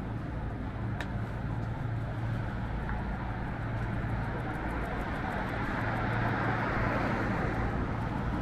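City street traffic with a low steady engine hum. A vehicle passes close, its tyre and engine noise swelling from about five seconds in.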